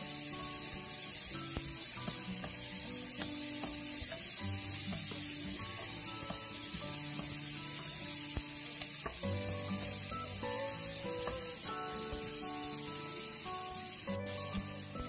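Chopped tomatoes, onions, garlic and ginger sizzling steadily in hot oil in a nonstick frying pan, stirred now and then with a wooden spatula. Soft background music plays underneath.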